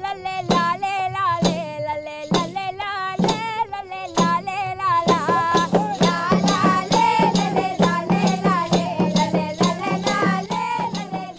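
Background music: a melody with a wavering, ornamented pitch in short phrases. About five seconds in, a fast, even rattling percussion rhythm joins over a steady low note.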